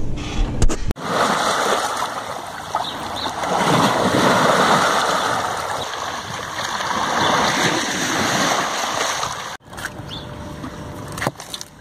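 River water washing and splashing over the stones of a boat ramp, swelling in two surges, then stopping suddenly near the end.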